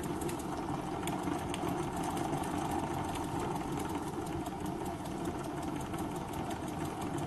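Small single-cylinder oscillating (wobbler) model steam engine running steadily on live steam, a rapid, even clatter of ticks.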